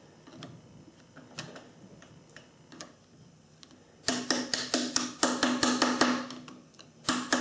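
Ratcheting screwdriver clicking in quick runs, about five clicks a second, with a metallic ring, while a small screw is driven into the drill press head. Only faint scattered taps come before the clicking starts about four seconds in; it pauses briefly near the end.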